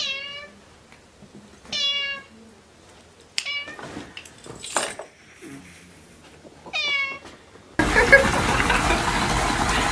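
A cat meows three times in short, pitched calls: one at the start, one about two seconds in and one near seven seconds. Around four to five seconds there is a scuffle of knocks with one short, sharp noise. Near eight seconds a loud, steady rushing noise takes over.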